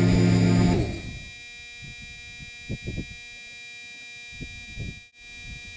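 DJI F550 hexacopter's electric motors running loudly while the crashed drone lies in the grass, then cutting off about a second in; the throttle was cut late after the crash. A faint steady electronic tone and a few soft clicks follow.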